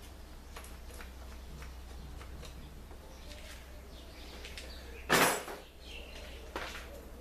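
Light clicks and taps of small parts being handled over a steady low hum, with one loud, short noisy burst about five seconds in.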